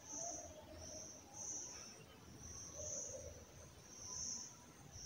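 Faint high-pitched insect chirping: short trills repeating about once a second.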